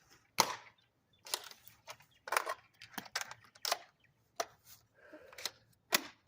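A series of about eight sharp plastic clicks and clacks, spaced irregularly, from a toy dart blaster and its shells being handled.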